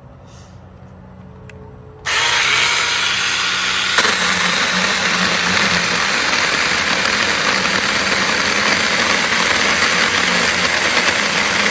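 SeeSii 6-inch battery-powered mini chainsaw switching on suddenly about two seconds in and running steadily at full speed, its chain cutting through a tough branch.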